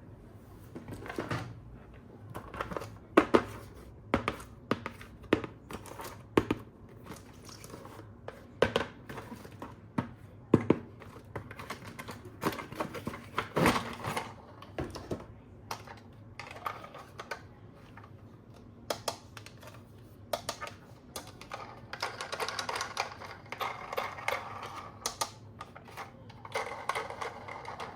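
Hands handling a plastic toy and its packaging: irregular sharp clicks and taps of hard plastic, with rustling near the end.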